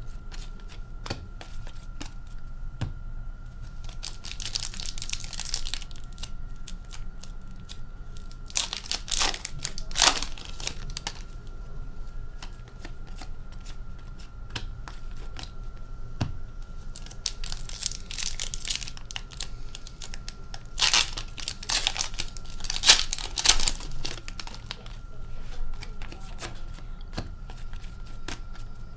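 Upper Deck hockey cards being flipped through by hand, card stock sliding and flicking against card. It comes in several short papery bursts with light clicks between them.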